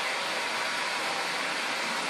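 Vacuum cleaner running with a steady, unchanging rush of noise.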